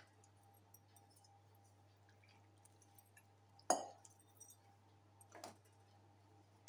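Hand mixing moist wheat flour in a glass bowl for chapati dough: faint rubbing and squishing, with a sharp clink against the glass bowl a little past halfway through and a softer knock later.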